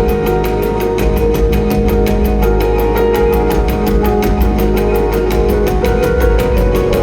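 Loud music with a heavy low bass, held notes and a fast, even beat.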